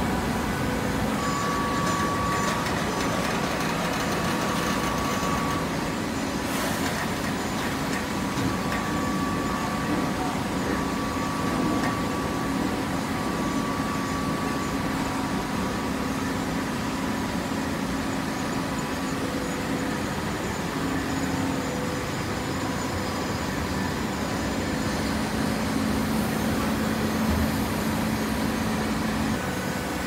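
Automatic horizontal hydraulic baler running: a steady mechanical hum of its hydraulic power unit, with faint held whining tones that come and go.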